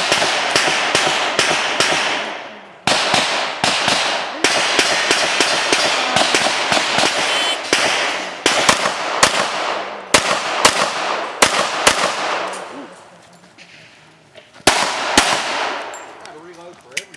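Pistols firing in rapid strings at an outdoor range, the shots echoing after each report. The firing thins out after about twelve seconds, with two last shots near the end.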